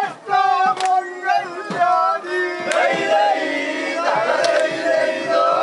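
A crowd of men chanting and singing together in held, wavering notes, with shouting voices mixed in.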